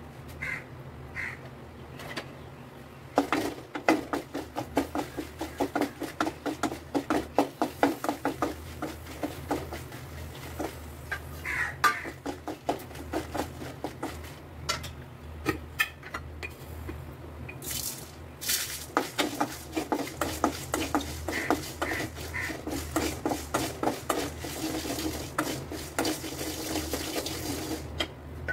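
A wooden spatula stirs and scrapes dry red chillies around a dry aluminium kadai, a quick run of scraping strokes with light knocks. About two-thirds of the way through, coriander seeds are poured in with a short rush, then the chillies and seeds are stirred again.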